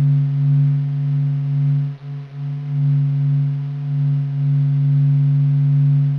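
Planetary radio emissions converted into sound: a low steady hum with a few fainter overtones above it. It swells and fades slowly, with two brief dips about two seconds in.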